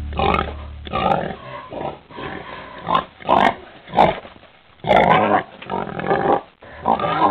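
Domestic pig grunting: a string of about a dozen short grunts at irregular intervals.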